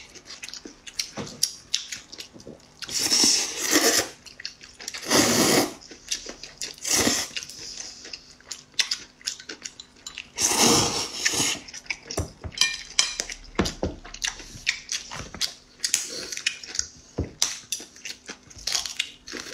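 Close-miked eating: several long slurps of glass noodles, with wet chewing and mouth clicks between them.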